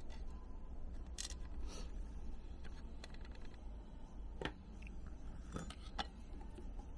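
Scattered light clicks and ticks of metal tweezers and a tiny spring against a small plastic part over a stainless steel tray, over a steady low hum.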